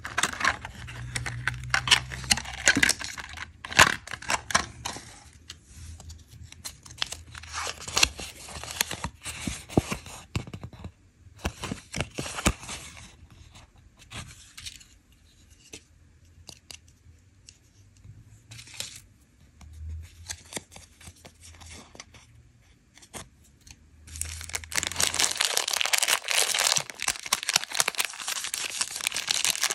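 Candy packaging handled by hand: a sealed lid peeled and torn off a plastic sweet tub in sharp crackly rustles, then quieter paper rustling as a leaflet is unfolded. From about 25 seconds in, a chocolate bar's plastic wrapper crinkles steadily and loudly.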